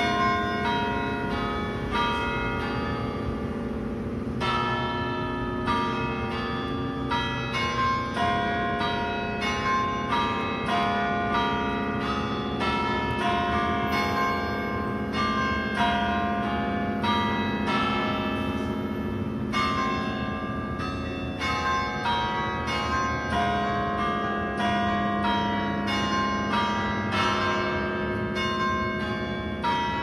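Church bells ringing a continuous peal: several bells of different pitches struck in quick succession, about two strikes a second, each note ringing on under the next.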